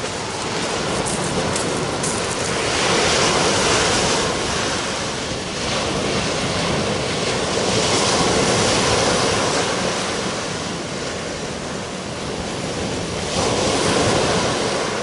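Sea surf breaking on a sand-and-shingle beach, a steady wash that swells louder about every five seconds as each wave comes in.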